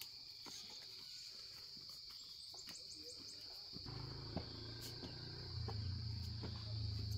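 Steady high-pitched insect chorus, like crickets, with scattered light clicks. About four seconds in, a low droning hum starts and grows louder.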